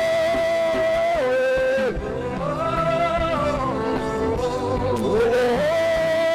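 Live gospel worship music: a singer holds long notes without words, sliding between them, over the backing music.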